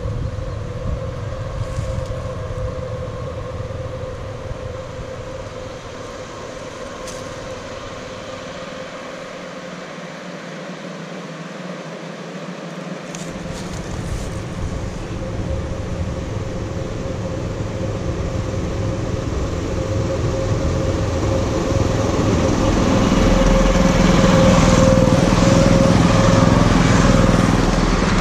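1/8-scale ride-on train, four EMD-style locomotives coupled and run together, approaching along a wooden trestle: a steady hum and the rumble of wheels on the rails grow steadily louder, loudest in the last few seconds as the locomotives pass close by.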